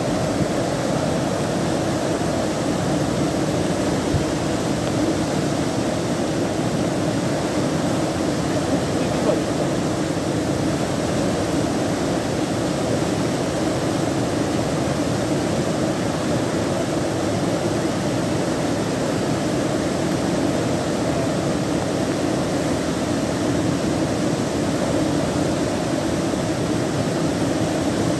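Flood-swollen mountain stream rushing in spate, a steady loud roar of muddy torrent water.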